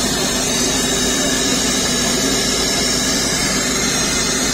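Steady engine noise that runs evenly without change, with a hiss above it.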